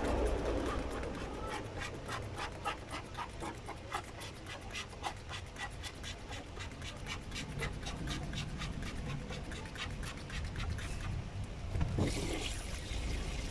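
Hand trigger spray bottle squirting water onto a screen-printing screen in rapid repeated spurts, several a second, washing out the exposed photo emulsion. Near the end a tap runs water over the screen.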